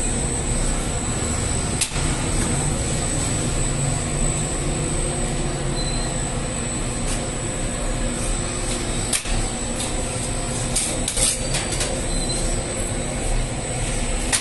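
Steady mechanical rumble and hum of bread-bakery machinery, the dough-sheeting rollers and a conveyor oven, with a constant high thin whine. A few sharp clicks or knocks come through, about two seconds in and again around nine and eleven seconds.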